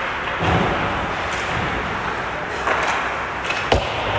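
Ice hockey play on an indoor rink: skates scraping and carving on the ice, with one sharp clack of a stick or puck strike about three and a half seconds in.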